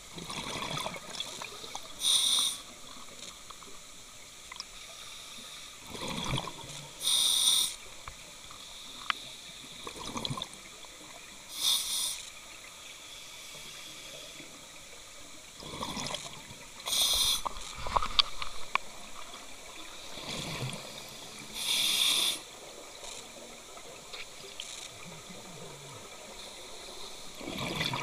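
Scuba diver breathing through a regulator underwater at depth: a slow breath in, then a short burst of exhaled bubbles, about every five seconds, five times over.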